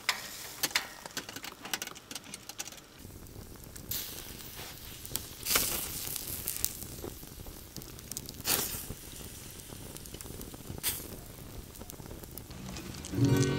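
Wood campfire burning with scattered sharp crackles and pops over a soft hiss. Just before the end an acoustic guitar starts playing.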